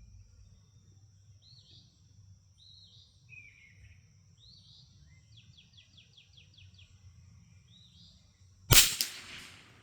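Birds chirping softly with a short rapid trill midway, over a faint steady high tone. Near the end, a single sharp shot from a Brno Model 1 .22 LR rifle, by far the loudest sound, with a short echoing tail.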